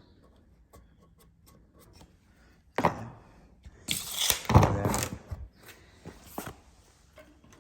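Scattered clicks, then a few louder clattering knocks about three seconds in and again for about a second and a half past the middle, from tools and hardware being handled.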